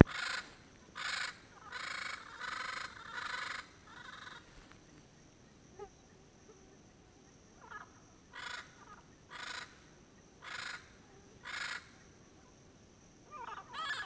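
Yellow-headed parrots calling: a quick series of loud calls in the first few seconds, then single calls about once a second, and a new run of calls near the end.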